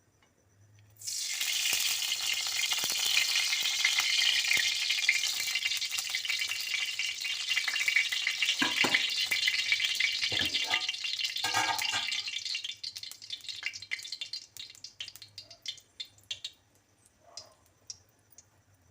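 Cooking oil poured into a hot kadai sizzling, starting suddenly about a second in and dying down to scattered crackles after about twelve seconds.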